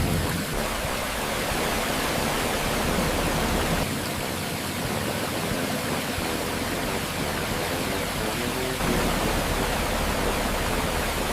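A steady rushing noise like running water or a waterfall, with faint music underneath. The low rumble beneath it thins out about four seconds in and returns near nine seconds.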